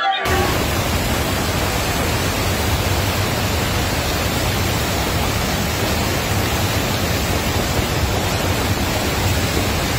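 Steady rushing roar of a muddy, flood-swollen river in spate, an even wash of water noise that starts abruptly just after the opening.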